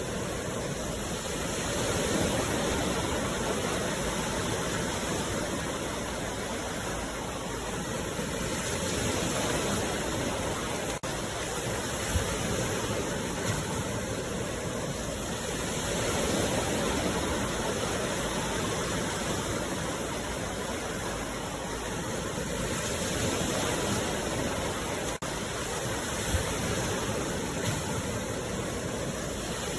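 Sea waves breaking and washing in a steady rush, swelling and easing about every seven seconds.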